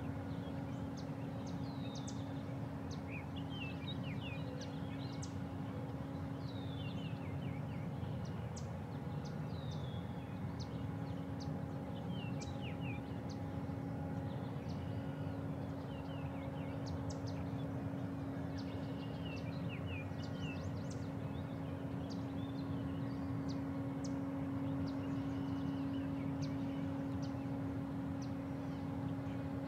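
Many short, high bird chirps and twitters, often falling in pitch, scattered throughout over a steady low rumble with a constant droning hum.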